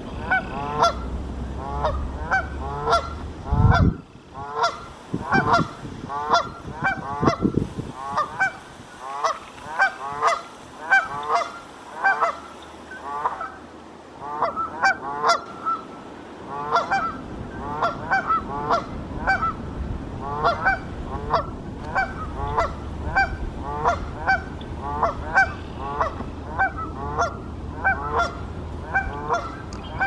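Canada geese honking over and over, about one to two honks a second, with short pauses now and then. A few low thumps sound in the first several seconds.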